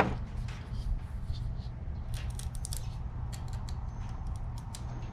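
Light metallic ticks and scratches as a knife tip picks at and peels back the stainless steel wire braiding on a brake hose, coming in scattered clusters mostly in the second half. A steady low hum runs underneath.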